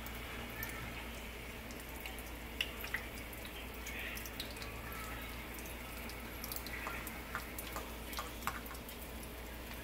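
Egg-battered green-bean bundles frying in oil in a skillet: a steady sizzle with scattered crackles and pops, the sharpest a pair about two and a half seconds in.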